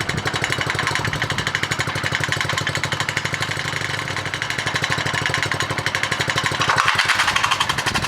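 Honda GX100 single-cylinder four-stroke engine running steadily with an even, rapid firing beat. It gets a little louder near the end.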